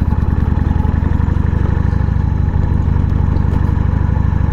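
Harley-Davidson Sportster's air-cooled V-twin running at low, steady revs, its firing pulses closely spaced and even, as the motorcycle rolls slowly along a gravel drive.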